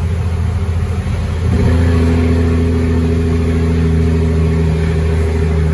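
Caterpillar 3306 inline-six diesel engine of a Ford Sterling truck running. About a second and a half in, its note steps up and gets louder, then holds steady.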